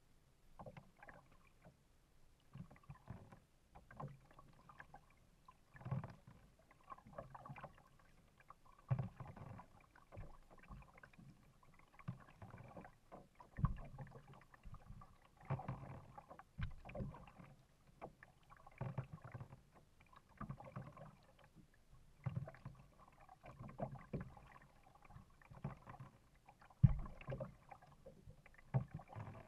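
Kayak paddle strokes: the blades dip and splash into the lake at a steady rhythm, about one stroke every second and a half. One sharper, louder splash or knock comes near the end.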